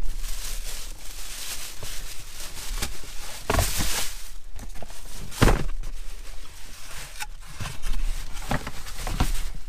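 Plastic shopping bag rustling and crinkling as a cardboard shoebox is pulled out of it and opened, with a few light knocks of the box about three and a half, five and a half and eight and a half seconds in.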